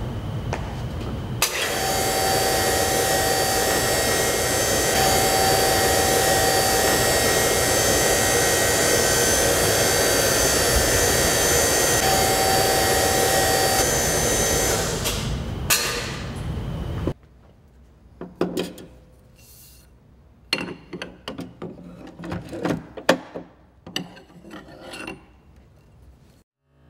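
Loud, steady machine noise with a thin whine, cutting off abruptly about seventeen seconds in. After it come scattered clicks, knocks and rubbing of metal parts being handled at a spring-powered ball launcher.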